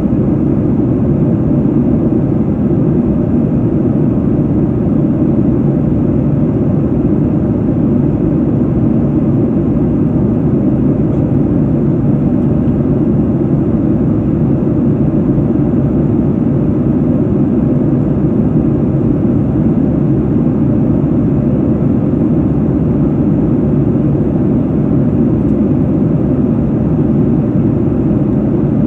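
Jet airliner in cruise heard from inside the cabin: an even, steady low rumble of engines and airflow with no changes.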